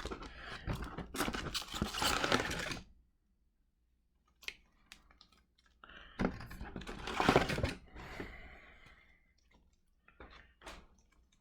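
Trading card box being opened by hand: crinkling, tearing wrapper and cardboard rustling in two spells with a pause between, plus a few sharp clicks and taps.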